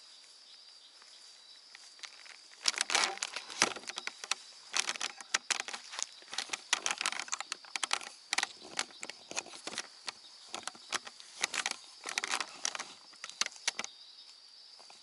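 Footsteps crunching and rustling through dry leaves and brush, a dense irregular run of crunches from about three seconds in until near the end, over a steady high drone of night insects.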